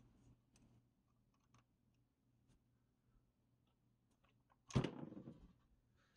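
Faint metallic clicks of needle-nose pliers gripping a stuck spark plug socket in the spark plug well. About five seconds in comes one sharp clunk that dies away within a second, as the socket is pulled free.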